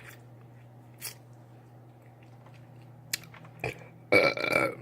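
A person burps once, loudly, near the end, while eating; a few faint short clicks come before it over a steady low hum.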